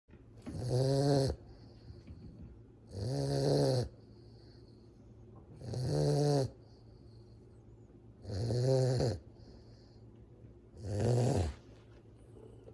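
Two-month-old Cane Corso (Italian Mastiff) puppy snoring in its sleep: five evenly spaced snores, about one every two and a half seconds. Each snore rises then falls slightly in pitch.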